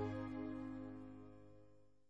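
Background music: a sustained chord fading steadily away.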